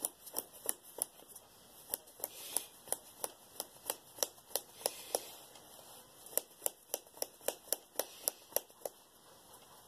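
Sharp clicks, about three a second, of a finger flicking the lid of a tin of Copenhagen Long Cut Wintergreen dip to pack the tobacco, with a short pause a little past halfway.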